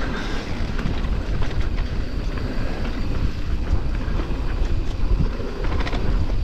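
Mountain bike descending a dirt forest trail: wind buffeting the microphone over the rumble of tyres on the ground, with scattered clicks and rattles from the bike.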